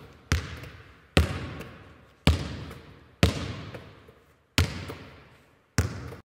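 A basketball bouncing slowly on a hard court, six separate bounces about a second apart, each with a long echo fading out. The bounces stop abruptly just before the end.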